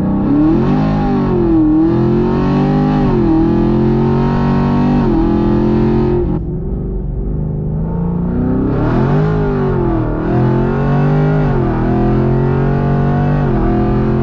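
Modded Chevrolet Camaro SS 6.2-litre V8 with long-tube headers and a Borla ATAK exhaust at full throttle, heard from inside the cabin. It makes two hard pulls. The engine note rises and then drops sharply at each quick upshift of the automatic, with a short lift about six seconds in before the second pull.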